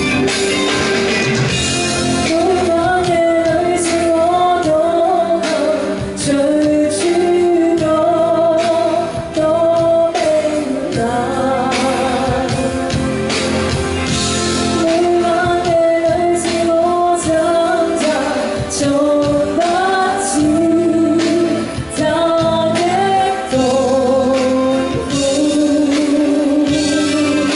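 A woman singing a Cantopop song live into a handheld microphone over a backing track through a PA system, her held notes wavering with vibrato.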